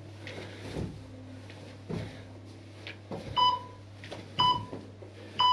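Workout interval timer counting down the end of a work interval: three short electronic beeps, one a second, in the second half. Before them come soft thuds, about one a second, of feet landing from jumping lunges on a hard floor.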